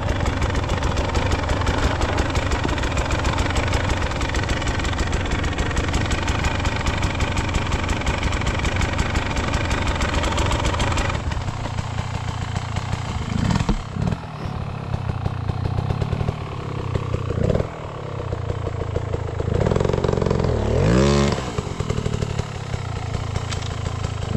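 Dirt bike engine running with an even, rapid firing beat. About eleven seconds in the sound changes: the beat becomes lower and less even, and there are a few short revs, the strongest near the end.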